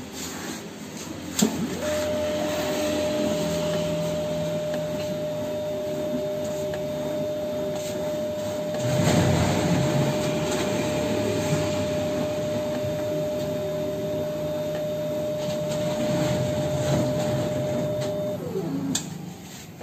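Automatic paint tinting machine dispensing colorants into a can of base paint. A click about a second in, then a steady motor whine over pump and mechanism noise, which winds down in pitch and stops near the end.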